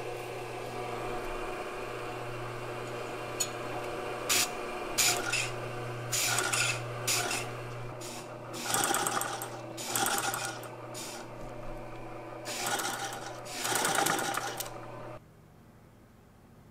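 Singer 176-33 fur sewing machine running in about six short spurts as its pedal is pressed and released, over the steady hum of its Singer under-table electric motor. Everything stops about fifteen seconds in.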